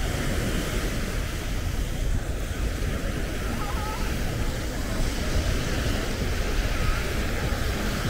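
Steady wash of surf on the beach, with wind rumbling on the microphone.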